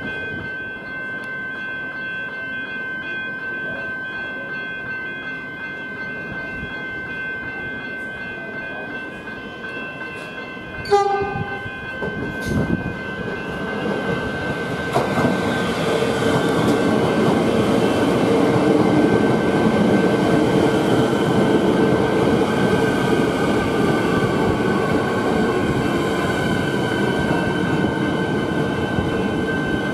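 Siemens Nexas electric multiple unit arriving at a station: a short horn blast about 11 seconds in, then the train's running noise builds as it comes in over the level crossing and along the platform, with a whine falling in pitch as it slows. Level crossing bells ring steadily throughout.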